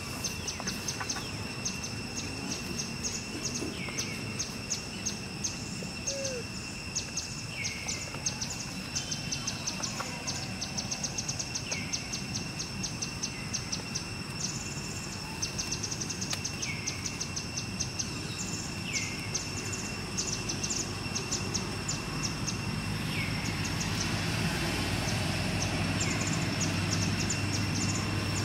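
Outdoor ambience: a steady high insect drone with rapid high ticking chirps, and a short falling bird call about every two seconds. Near the end a motor engine's low hum comes in and grows louder.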